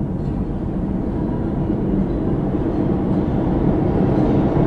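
U35 light-rail train running into the station along the platform: a steady rumble of wheels on rail that grows a little louder as the train comes close.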